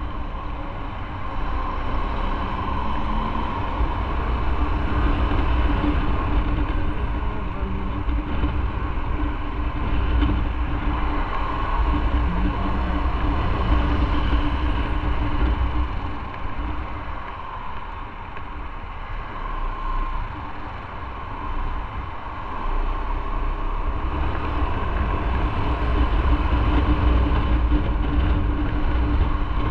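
Motorcycle riding along: the engine runs steadily under a heavy low rumble of wind, easing off for a few seconds past the middle and then picking up again.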